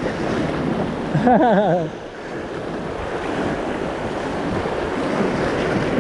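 Surf washing over the rocks with wind buffeting the microphone. About a second in, a short, loud, wavering voice-like sound stands out above the waves.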